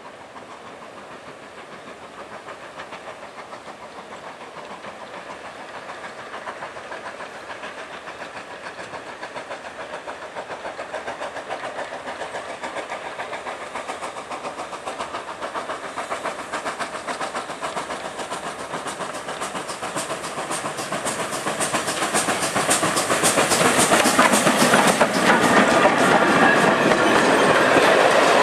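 GWR Manor-class steam locomotive 7800 'Torquay Manor' working a passenger train, its rhythmic exhaust beat growing steadily louder as it approaches. From about three quarters of the way in, the coaches roll past close by with loud wheel clatter on the rail joints.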